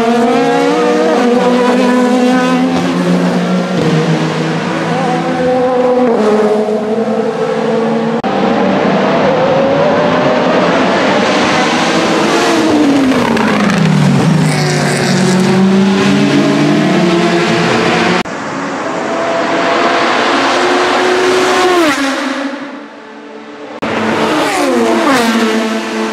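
Vanwall Vandervell 680 hypercar's Gibson GL458 4.5-litre V8 at racing speed, passing several times in a row. The engine note climbs through upshifts and drops away as the car goes by.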